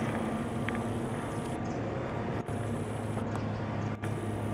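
Cessna FR172J light aircraft flying low overhead, its single piston engine and propeller making a steady drone.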